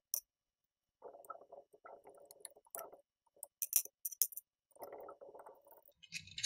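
Screwdriver turning small screws out of a 3D printer hotend's plastic fan shroud: quiet scratchy turning sounds, a run of sharp little clicks and clinks of metal and plastic, and a louder clatter near the end as the parts are handled.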